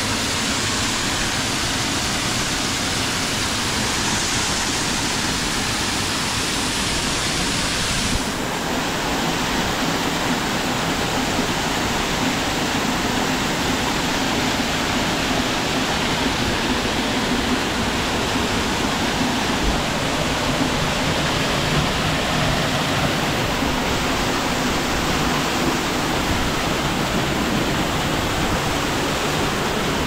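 Waterfall rushing: a steady, loud wash of falling water, its tone shifting slightly about eight seconds in.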